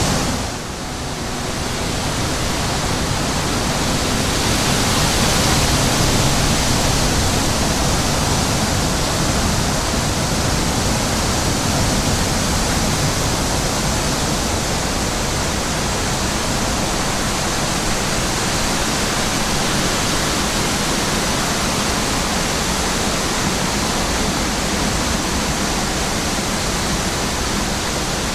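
Wind rushing over the microphone: a steady, loud noise with no pitch, which drops briefly about half a second in and then builds back.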